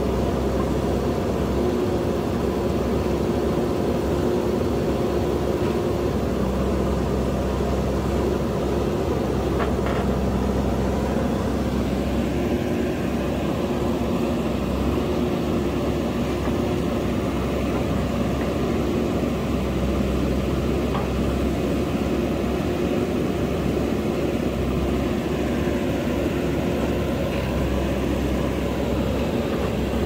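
JCB backhoe loader's diesel engine running steadily under working load, its pitch shifting slightly every few seconds.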